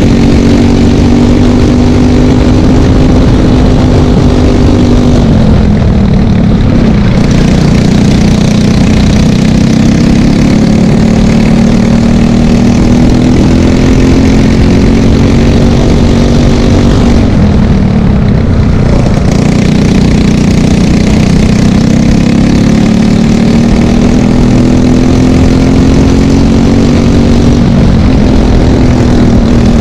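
Briggs & Stratton LO206 single-cylinder four-stroke kart engine at race pace, heard onboard and loud. Its pitch holds high, falls sharply twice, about five and seventeen seconds in, as the kart slows for corners, then climbs steadily again as it accelerates out.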